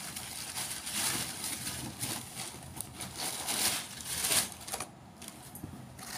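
Cotton suit fabric rustling and swishing as it is lifted, shaken out and spread by hand, in a string of soft swishes.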